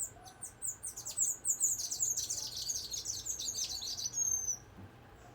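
Burnished-buff tanager (saíra-amarela) singing: a fast run of thin, high chips and twitters that thickens after about a second and ends with a couple of longer downslurred notes.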